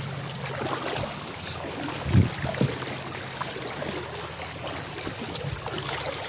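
Kayak paddles dipping and splashing in river water, with two dull thuds a little over two seconds in.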